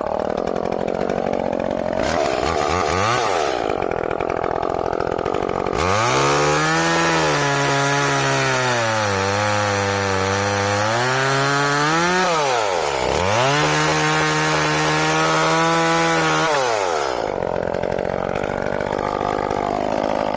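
Echo CS-305 30cc two-stroke chainsaw idling, blipped once, then run at full throttle through wood for about eleven seconds, its pitch sagging and recovering under the load of the cut. It eases off briefly and goes straight back in, then drops back to idle near the end.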